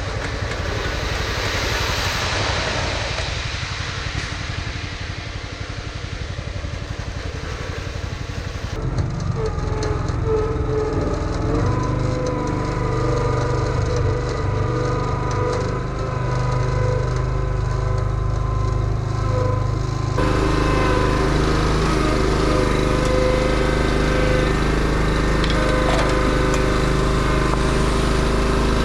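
A vehicle engine running steadily, with noisy wind rushing over the microphone during the first few seconds; the sound changes abruptly about 9 s and again about 20 s in.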